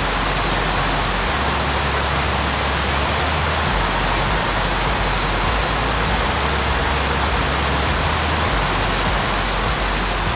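Dynjandi waterfall and its lower cascades rushing: a loud, steady hiss of falling and churning water.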